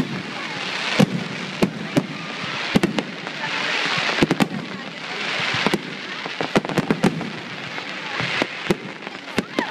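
Fireworks finale barrage: shells bursting in rapid, irregular bangs, many per second at times. Between the bangs, a dense crackle swells and fades several times.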